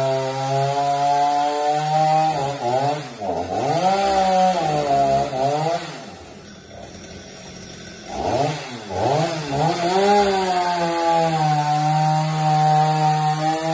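Stihl MS 250 two-stroke chainsaw running at high revs while cutting, its engine note sagging and recovering a couple of times under load. About six seconds in it drops back to idle for a couple of seconds, then is revved up again and runs steadily at full throttle.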